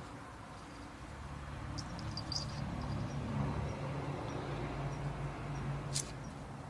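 Domestic cat making low, drawn-out murmuring "unya unya" sounds that swell in the middle and fade near the end, with one sharp click about six seconds in.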